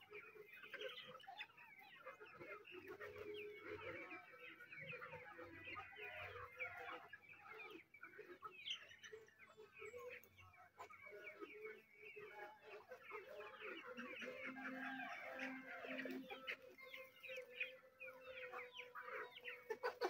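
A flock of chickens clucking continuously and faintly while they peck at feed.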